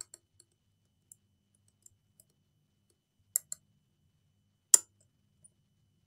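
Scattered sharp clicks and taps of hands working on an open laptop's plastic and metal parts: several faint ticks, two close together about three and a half seconds in, and the loudest single click just before five seconds.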